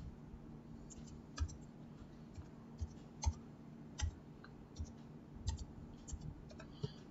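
Computer keyboard keys tapped one at a time, about a dozen separate irregular clicks as a phone number is typed, over a faint steady hum.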